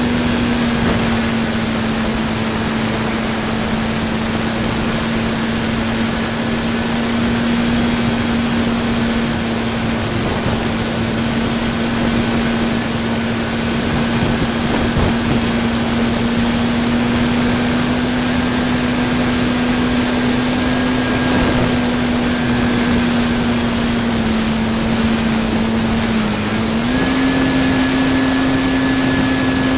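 RC park flyer's electric motor and propeller heard from on board in flight: a steady drone over rushing air. Near the end its pitch dips briefly, then steps up a little to a higher motor speed.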